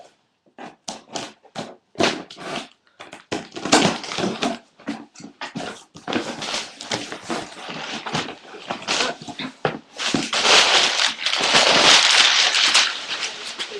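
A cardboard shipping box being opened and unpacked by hand: packaging rustles and crinkles in irregular bursts, with a longer, louder stretch of crackling near the end.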